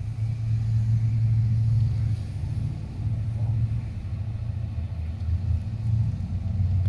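Diesel-electric freight locomotives approaching under power, their diesel engines making a deep, steady rumble that swells a little about half a second in.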